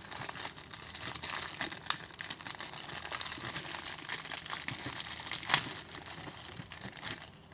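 Clear plastic wrapping crinkling continuously as it is handled and pulled off large electrolytic capacitors, with a sharp click about five and a half seconds in.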